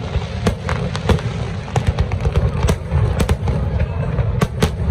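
Aerial fireworks display: a dozen or so sharp bangs at irregular intervals over a continuous low rumble of shell bursts.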